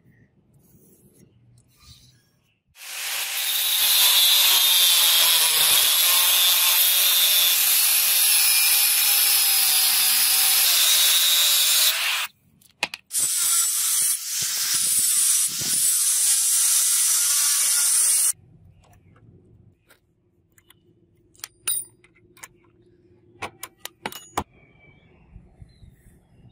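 Angle grinder with an abrasive cut-off disc cutting a steel blade blank. It runs in one long cut of about nine seconds, stops briefly, then cuts again for about five seconds with short dips, its pitch wavering under load. Light clicks and marker scratching are heard before and after.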